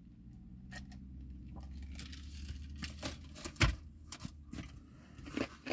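Quiet handling sounds: a drink taken from a plastic cup, then light clicks and crinkles from handling food and a foam takeout box, with one sharper knock a little past halfway. A low steady hum underneath stops about then.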